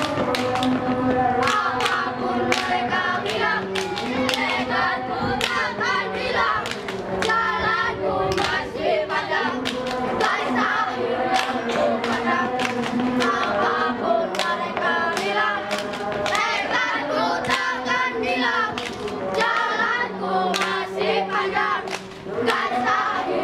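A group of boys singing and chanting a Scout yel-yel cheer song together, punctuated by frequent sharp percussive hits in rhythm with the routine.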